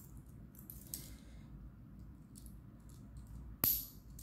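Faint handling of a stainless steel watch bracelet as the watch goes onto the wrist, with a few light clicks and one sharp metallic click with a brief ring about three and a half seconds in, as the clasp snaps shut.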